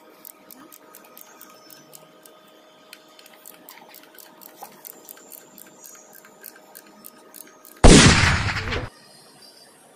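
Faint, irregular light clicks and taps of hands working over a truck gearbox's shift rails, then about eight seconds in a sudden loud rush of noise that lasts about a second and cuts off abruptly.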